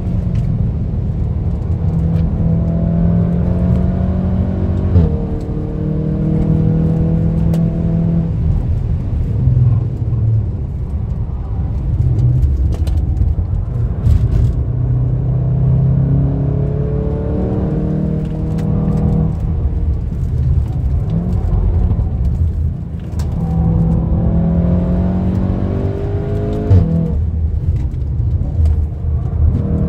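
Tuned VW Golf 7.5 R's turbocharged 2.0-litre four-cylinder driven hard. The engine note climbs with the revs and drops suddenly at quick DSG upshifts, several times over, with short sharp cracks now and then.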